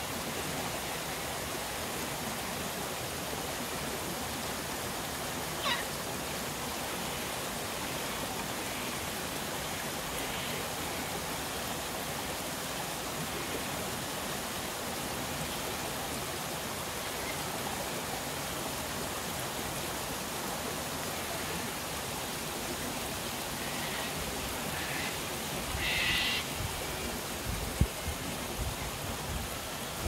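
Steady rush of a waterfall and creek cascading over rock, with a few short screeching calls from sulphur-crested cockatoos, the loudest about 26 seconds in. Low rumbling and a sharp knock come near the end.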